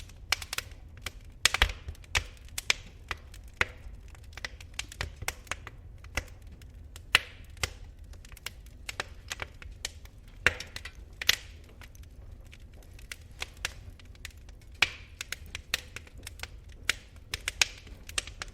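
Wood fire in a fireplace crackling: irregular sharp pops and snaps at no steady rhythm, a few much louder than the rest, over a low steady rumble of the burning fire.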